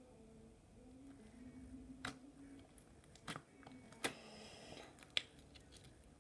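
Fingers poking into soft slime: four quiet sharp clicks or pops, roughly a second apart, with a brief crackle after the third one, about four seconds in.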